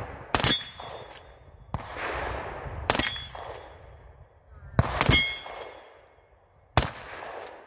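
Three shots from a Chiappa 1892 lever-action carbine in .44-40, each trailing off in a short echo, with a sharp metallic clank that rings briefly between them.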